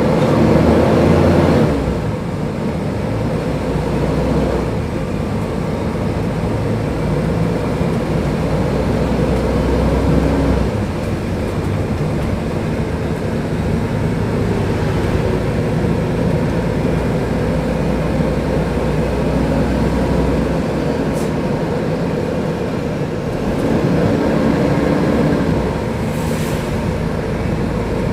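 Diesel engine of a Mercedes-Benz O500UDA articulated bus running while under way. Its pitch rises and falls a few times as it pulls and changes gear, over a steady low rumble.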